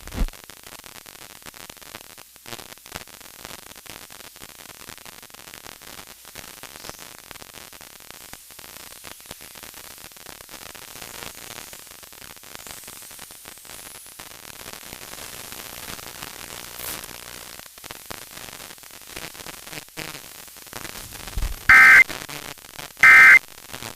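Steady radio static hiss. Near the end it is cut by two short, loud, shrill bursts of Emergency Alert System digital data tones.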